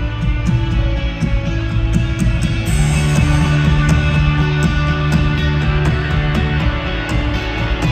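Rock band playing live, an instrumental passage with guitars over a steady drum beat, with a bright cymbal-like wash coming in about three seconds in.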